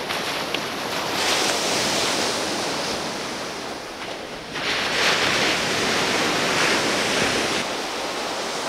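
Ocean surf breaking on a beach, swelling louder twice, with some wind buffeting the microphone.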